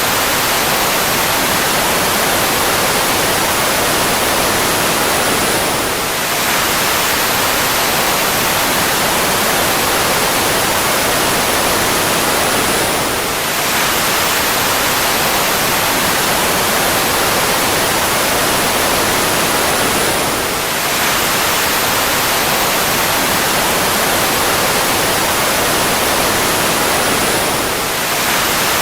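Fighter jet engine noise: a loud, steady, even rush with a faint high whine that slowly falls in pitch. The whole pattern repeats about every seven seconds with a brief dip in level, a short recording looped.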